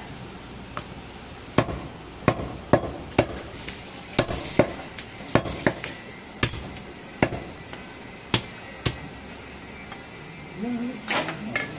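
Cleaver chopping goat meat and rib bone on a wooden log chopping block: a series of sharp chops at uneven intervals, roughly one or two a second, stopping about two seconds before the end.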